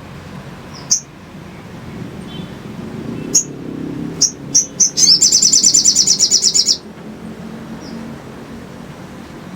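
Little spiderhunter (sogon) calling: sharp single high chips, one about a second in and several a little after three seconds, then a fast, even trill of about nine notes a second lasting almost two seconds. A low steady hum lies underneath.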